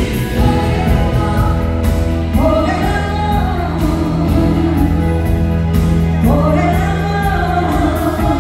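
A woman singing into a microphone with a live band playing under her, heard from the audience in a theatre. She sings two long phrases, the first starting about two seconds in and the second about six seconds in.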